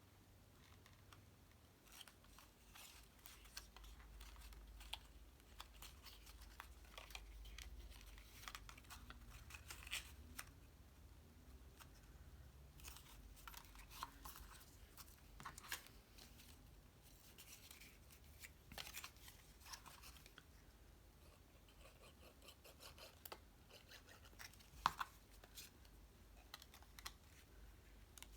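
Faint handling of cardstock: scattered light scrapes, rustles and small clicks as paper pieces are lined up and pressed together, with one sharper click near the end.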